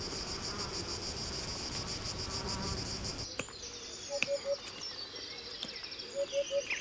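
Insects chirring in a fast, even pulse for about three seconds, cutting off suddenly. Then come quieter bird calls: two short groups of three low notes and a faint run of falling notes near the end.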